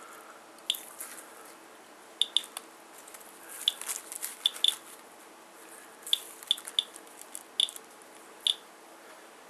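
Geiger counter clicking at random, uneven intervals: about a dozen sharp clicks, some in quick pairs, as it counts radiation from a rain-soaked paper towel sample.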